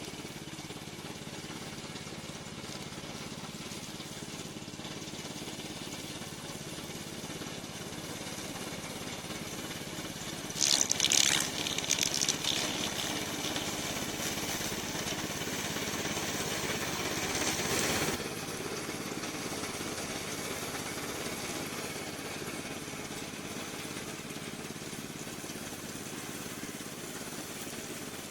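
Remote-control slope mower running steadily. Around the middle it gets louder and hissier for about seven seconds, then drops back suddenly.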